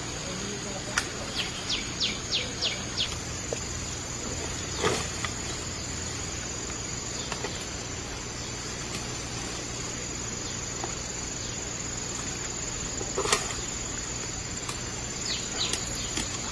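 Steady high-pitched drone of insects in the forest, with a bird calling in quick runs of short falling chirps, about six near the start and a few more near the end. A few sharp clicks or knocks come through as well, the loudest about two thirds of the way in.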